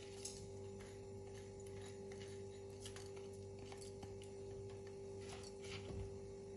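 Faint soft scrapes and light ticks as raw rice is scraped from a plastic bowl into a pot with a silicone spatula and stirred, over a steady low electrical hum.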